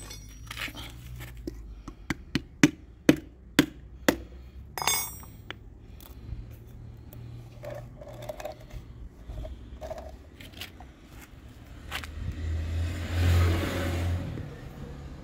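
Sharp clicks and knocks from working at a plastic motor-oil bottle to pierce its seal, several in quick succession, then one metallic clink that rings briefly. Near the end a louder low rumble swells and fades.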